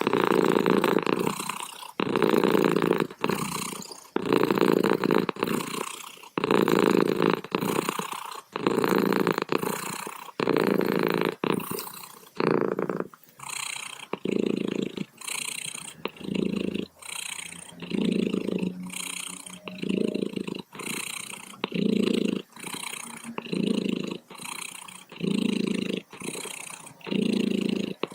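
Domestic cat purring in a steady rhythm, each breath in and out a separate pulse of purring, about one a second. The pulses run longer and fuller in the first half, then shorter and more clearly spaced.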